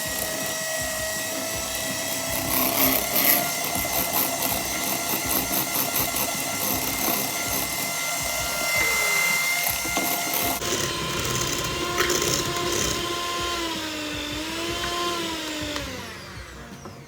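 Electric mixer whipping egg whites, its motor giving a steady whine. About ten seconds in the pitch shifts, then wavers, and near the end it falls away as the mixer is switched off.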